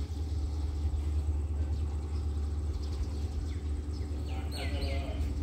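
Steady low rumble of an approaching diesel freight locomotive still far down the line, with a few short chirps about four and a half seconds in.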